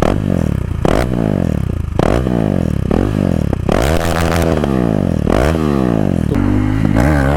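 KTM 390 Duke's single-cylinder engine, its stock exhaust removed, revved in a series of loud throttle blips about once a second, with a longer rev about four seconds in, before dropping back to a steadier idle near the end.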